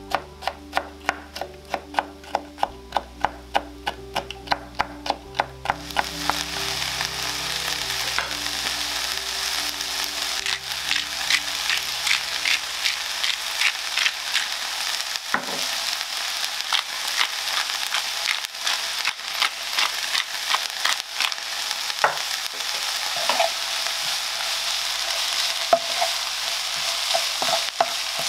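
A chef's knife chopping chili on a wooden cutting board, about four quick cuts a second. About six seconds in, this gives way to diced red peppers and onion frying in a pan: a steady sizzle with the scrape and tap of a wooden spatula stirring.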